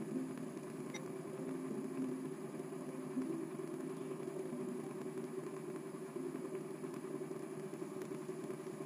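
Stand mixer motor running steadily, its flat beater creaming butter and sugar in a stainless steel bowl as an egg yolk is beaten in.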